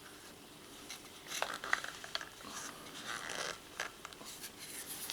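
Handling noise of a CO2 canister being fitted into an Umarex TPX50 pistol: scattered small clicks and rasping scrapes of metal parts.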